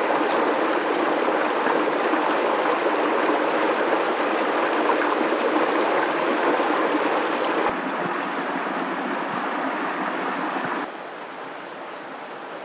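Shallow stream running over rocks, a steady rush of water. It gets quieter about eight seconds in and drops again, more sharply, about eleven seconds in.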